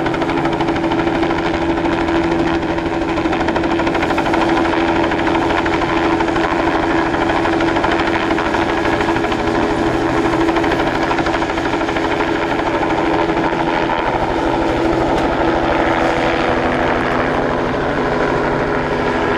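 Bell 206-series turbine helicopter flying low and close, its steady turbine whine over a rapid, even beat from the rotor blades.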